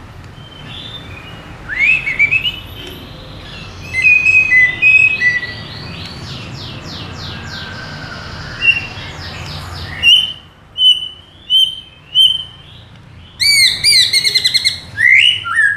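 White-rumped shama singing a varied whistled song: rising whistles, quick trills, then a run of short repeated notes about ten seconds in. Near the end comes a loud, fast run of notes.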